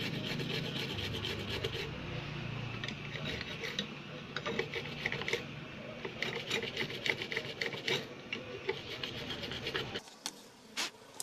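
A hand tool scraping and rubbing at a circuit board: a rapid, dense rasp full of small clicks that stops abruptly about ten seconds in.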